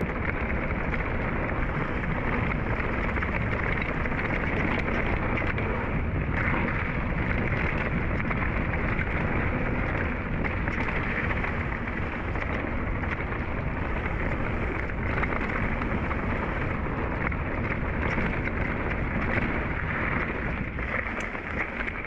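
Mountain bike riding noise on an action camera: a steady, muffled rush of wind over the microphone mixed with knobby tyres rolling over a dirt trail.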